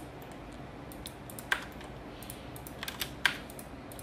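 A few scattered clicks of a computer keyboard and mouse during work in AutoCAD, the loudest about a second and a half in and just after three seconds, with a quick cluster of clicks just before it.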